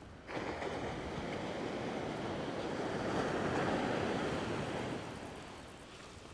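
Surf: a wave breaks and washes up the sand with a rushing noise that starts suddenly, swells for a few seconds, then fades away.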